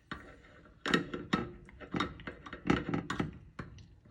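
Kitchenware being handled while straining: a strainer, jar and measuring cup knocking and clinking together in a dozen or so irregular light knocks and clicks.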